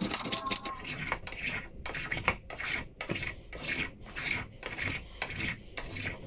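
A tiny Japanese hand plane taking short strokes along a strip of Australian ironbark hardwood. Each pass gives a rasping shave, repeated about once or twice a second.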